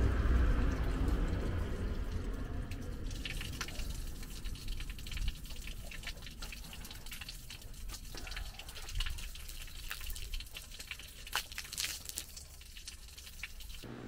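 Water rushing or pouring, fading over the first few seconds, then scattered drips and small splashes.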